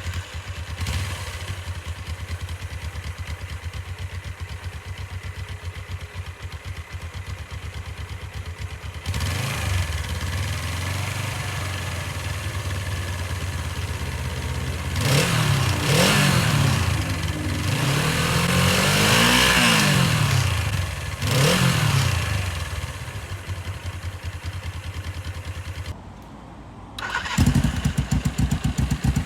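Motorcycle on its stock exhaust idling, then revved several times with the pitch climbing and falling back, a note that is pretty quiet and tame. Near the end, after a brief dip, a louder engine idle starts.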